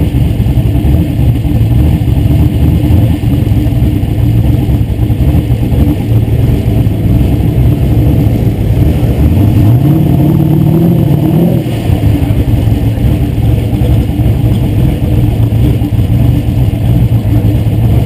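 A car engine running at low speed, heard close up from its own hood, with a brief rise in revs from about nine seconds in that drops back near twelve seconds.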